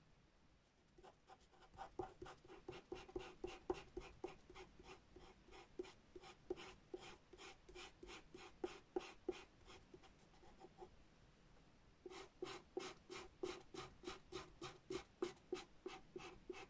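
Pastel pencil scratching across dark, toothy pastel paper in quick short strokes, about four a second. The strokes pause for about a second partway through, then carry on.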